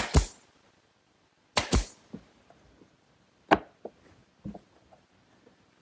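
Pneumatic brad nailer driving 1-inch brads through a wooden corner joint: two shots about a second and a half apart, each a sharp double clack. Later comes a single sharp click and a few lighter knocks of wood being handled.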